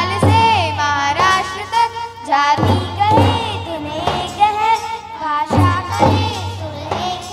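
Children singing a patriotic Hindi song, backed by a live school band of drums, congas and keyboard. The sung melody wavers in pitch over heavy drum beats that land about every three seconds.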